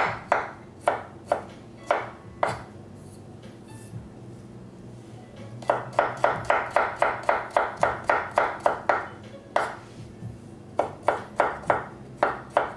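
Chef's knife chopping garlic cloves on a wooden cutting board: quick runs of sharp knife strikes, about four a second. The strikes pause for about three seconds after the first few strokes, and again briefly before the last run.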